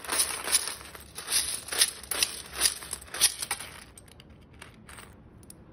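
A white-bellied caique digging and thrashing through a metal tin full of small loose pieces: rapid rustling, crinkling strokes about two or three a second, dying down to a few faint rustles after about three and a half seconds.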